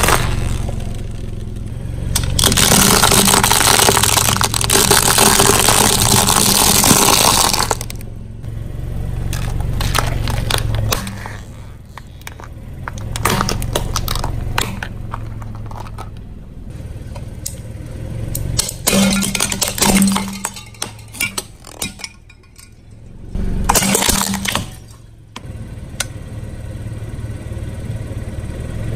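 A car tyre rolling over and crushing a series of objects: long stretches of crunching and crackling, broken by sharp snaps and clinks, with a steady low engine hum under the first half.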